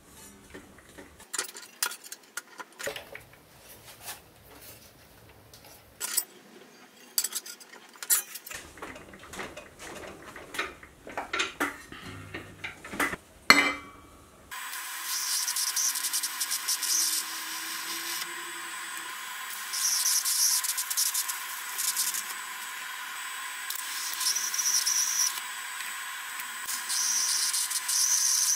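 Thin sheet metal being handled and bent in a bench vise: scattered clinks and knocks. About halfway through, a TIG welding arc strikes and runs with a steady hiss and buzz that swells several times as the seams of the sheet-metal tub are welded.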